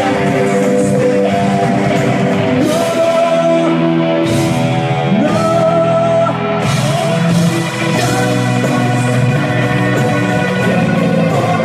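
Rock band playing live: electric guitars holding sustained chords over bass, with a singing voice.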